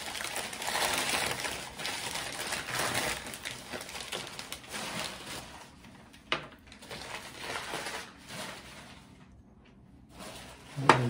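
Packing paper rustling and crinkling as pieces of milk glass are unwrapped by hand, with two sharp knocks, the louder one near the end.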